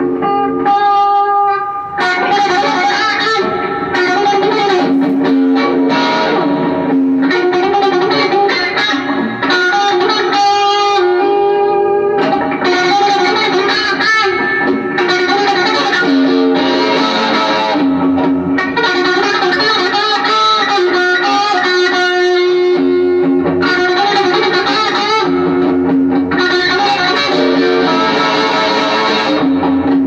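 Electric guitar playing a slow melody of sustained, ringing notes.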